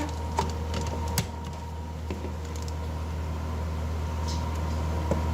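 A few light clicks, like small plastic parts being handled, over a steady low background hum.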